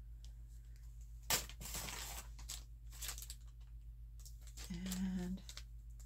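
Small plastic zip-lock bag of frosted beads being handled: a sharp click about a second in, then crinkling of the plastic for about two seconds.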